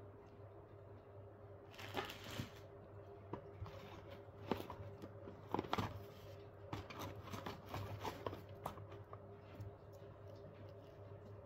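Faint rustling, crinkling and light clicks of baby items and their plastic packaging being handled in an open bag. The loudest come about two, four and a half and six seconds in, over a low steady hum.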